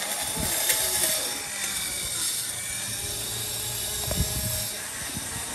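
Handheld rotary grinder running steadily with a high whine while porting a motorcycle cylinder head, with a couple of short knocks of workshop clatter.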